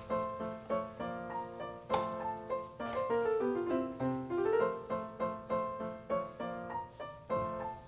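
Background piano music: a flowing melody of quick, evenly spaced notes.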